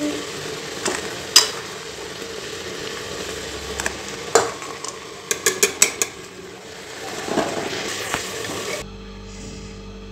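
A steel ladle stirs and scrapes thick carrot halwa in a metal pot over a steady frying sizzle. The ladle clinks sharply on the pot several times, with a quick run of clinks about five to six seconds in. The cooking noise stops shortly before the end.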